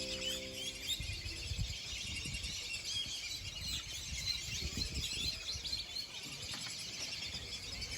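Many small birds chirping and twittering continuously in quick overlapping calls, over a low uneven rumble. The last held notes of background music fade out in the first second.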